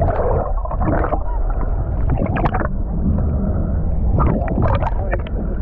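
Underwater sound through a waterproof camera housing: a steady low rumble with irregular bubbling and crackling of water rushing past the boat's hull.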